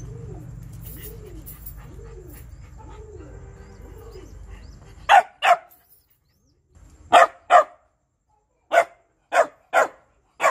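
Young Shiba dog barking to demand food: short, sharp barks in quick pairs, eight in all, starting about halfway through.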